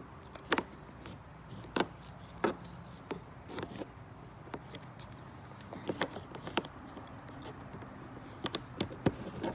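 Scattered light clicks and taps of a plastic trim cover being handled and fitted onto a car's inside door panel, a dozen or so irregular small knocks.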